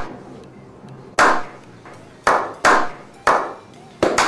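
Slow clap: a small group of people clapping together, single sharp claps about a second apart at first, coming faster near the end.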